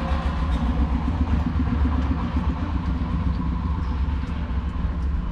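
A steady low machine hum, with a faint steady whine above it.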